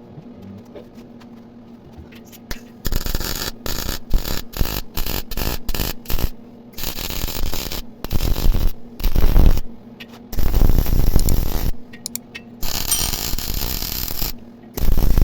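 Electric arc welding on steel: after a few seconds of low hum, the arc crackles in a run of short stop-start bursts, each about half a second to a second and a half long, like a series of quick tack and stitch welds.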